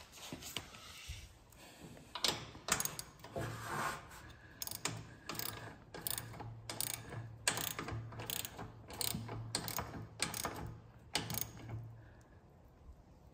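Socket ratchet wrench with an extension clicking in short bursts, about two a second, as it tightens a 12 mm bolt on a metal frame bracket. The clicking stops near the end.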